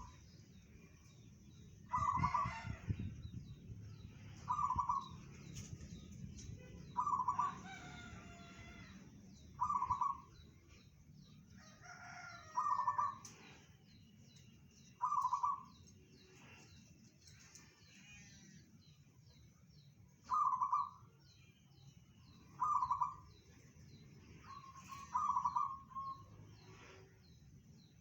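Local perkutut (zebra dove) cooing: a short, loud, pitched call repeated about nine times, roughly every two and a half seconds, with a longer pause about two-thirds of the way through.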